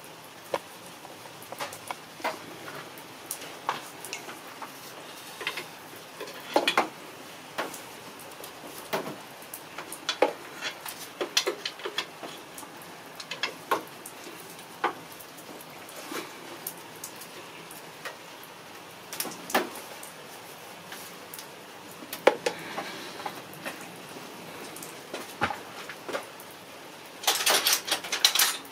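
Metal hand tools and engine parts clinking and knocking at irregular intervals during belt work. A quick run of rattling clicks comes near the end.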